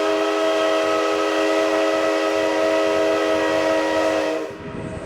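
Steam whistle of the C12 167 tank locomotive, blown on compressed air: one long blast of several tones held steady, cutting off sharply about four seconds in.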